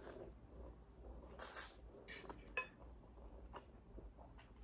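Eating utensils clinking and tapping against a bowl of noodle soup: a few separate light knocks, one with a brief ringing clink about two and a half seconds in.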